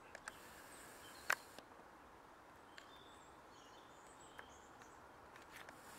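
Faint background hiss with a few sharp clicks, the loudest about a second in, and faint short high chirps in the middle.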